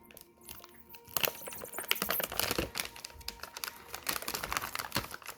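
Crinkling and crackling of the wrapper of a freeze-dried astronaut ice cream being handled and opened, a quick irregular run of sharp crackles.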